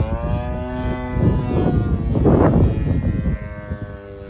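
Engine and propeller of a radio-controlled model plane droning overhead, a steady pitched tone that sinks slightly as the plane passes. Wind buffets the microphone, loudest about two and a half seconds in.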